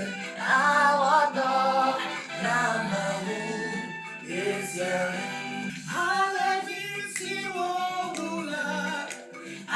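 Music with singing voices: a song whose vocal lines rise and fall over a steady accompaniment.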